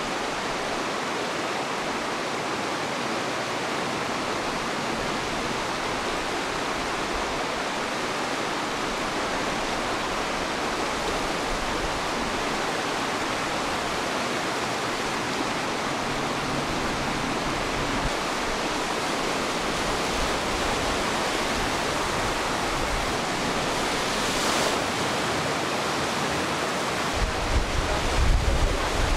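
A steady, even rushing noise, with low rumbling bumps in the last couple of seconds.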